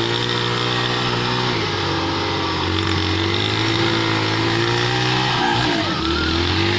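Small street motorcycle engine revving unevenly while the bike struggles for grip in mud, its pitch rising and falling and dipping briefly about five and a half seconds in.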